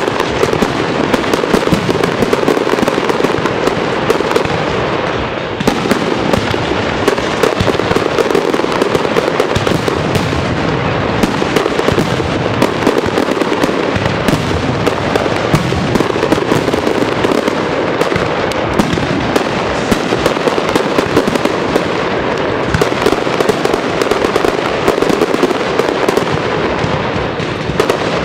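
Aerial fireworks display in a continuous barrage: many shells bursting and crackling in rapid, overlapping bangs with no pause.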